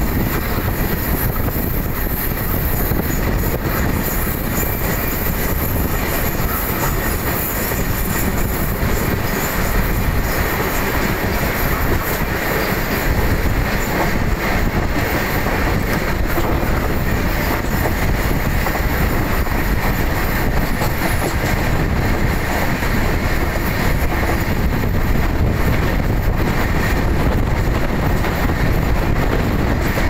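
Steady, loud running noise of trains at speed on parallel tracks: steel wheels rolling on rails, heard from an open window of a moving passenger coach with a double-stack container freight train running alongside.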